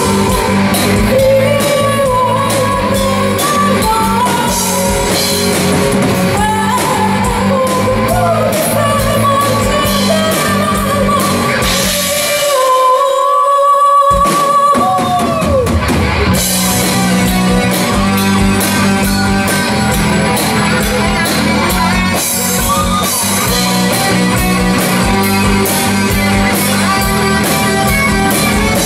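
A gothic metal band playing live in a hall, with drums, bass guitar, keyboard and a sung vocal line over the top. About twelve seconds in, the low instruments drop out for a couple of seconds under one held high note, then the full band comes back in.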